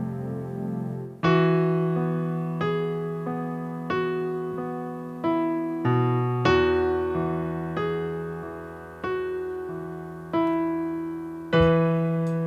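Electric piano playing slow sustained chords with no singing: a held chord, then a new chord struck about every second and a bit, each left to ring and fade.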